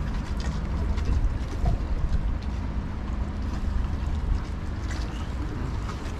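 Wind rumbling on the microphone outdoors, with a faint steady hum underneath that fades out about two-thirds of the way through.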